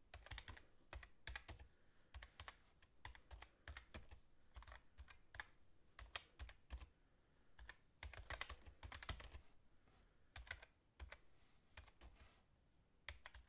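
Faint computer-keyboard typing sound: irregular runs of quick key clicks with short pauses between them.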